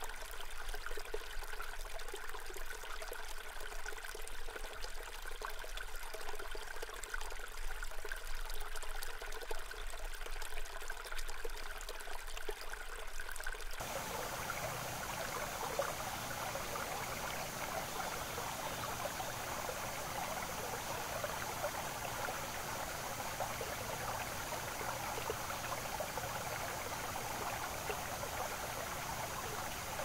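Running water of a stream, trickling steadily. About halfway through it changes to a fuller, broader rush of water.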